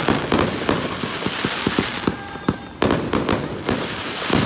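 Aerial fireworks going off in quick succession: many sharp bangs with continuous crackling between them, easing off briefly about two seconds in before another cluster of bangs.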